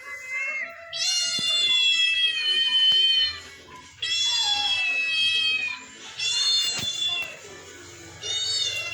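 Cat meowing repeatedly: about four long, drawn-out meows of one to two seconds each, with short pauses between them, each sliding slightly down in pitch toward its end.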